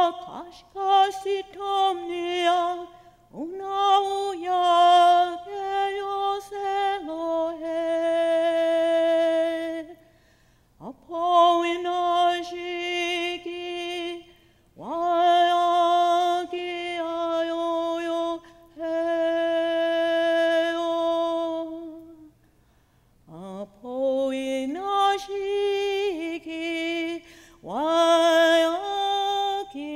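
A woman singing a Lakota song unaccompanied, in long held notes, with phrases broken by short pauses.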